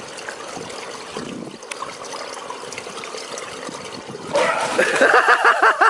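Pool water lapping and trickling as a swimmer moves through it. A little over four seconds in, a voice breaks in louder with quick repeated pitched syllables, about six a second.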